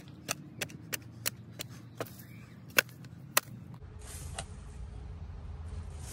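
Hand hoe chopping into dry, stony soil: quick sharp strikes about three a second, the last two the loudest. About four seconds in, the strikes stop and a low steady rumble takes over.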